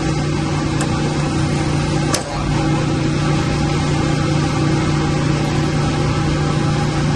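Steady hum of running machinery in a pump and equipment room: a strong low tone over an even wash of mechanical noise, with two light ticks about one and two seconds in.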